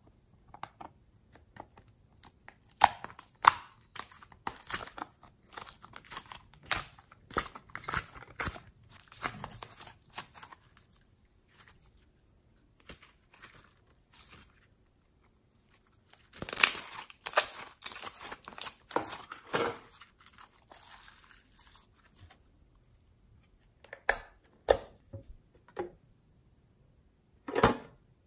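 Glossy slime being stretched, squeezed and kneaded by hand, giving sticky clicking, popping and crackling sounds in irregular bursts with short pauses between them.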